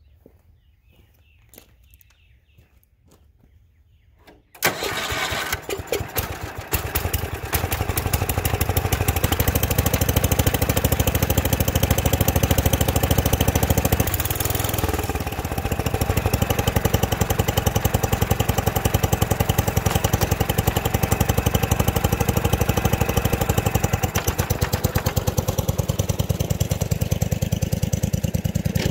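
Wheel Horse 8 hp garden tractor's single-cylinder engine, cold-starting suddenly about four and a half seconds in after a few faint clicks, then running steadily with an even beat. Its note dips briefly around halfway, and near the end the tractor drives away.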